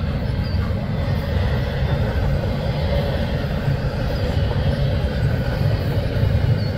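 Freight train of autorack and double-stack container cars rolling past, a steady loud rumble of steel wheels on rail.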